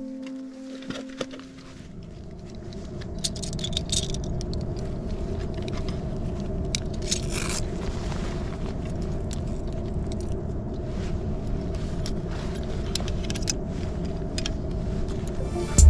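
Wind rumbling steadily on a helmet-mounted camera microphone, with scattered metallic clinks of carabiners and climbing hardware being handled on a fixed rope.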